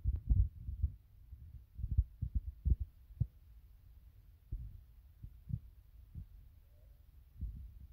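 Wind buffeting the microphone: irregular low thumps and rumbles, strongest in the first three seconds and then sparser.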